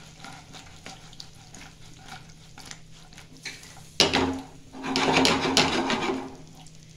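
Frying pan of chilli gobi being tossed and shaken on a gas stove, the fried cauliflower and vegetables moving in the pan. A few faint light clicks at first, then a sudden loud burst of pan noise about four seconds in that lasts about two seconds.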